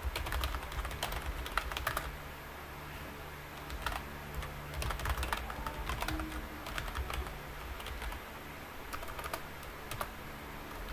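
Typing on a computer keyboard: clusters of quick keystrokes with short pauses between them, over a low steady hum.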